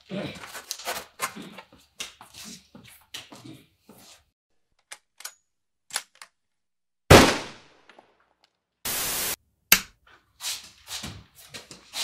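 Off-screen gunfire. Scattered clicks and knocks lead to one loud shot about seven seconds in with a ringing tail. A short burst of harsh noise comes near nine seconds and another sharp shot just after it.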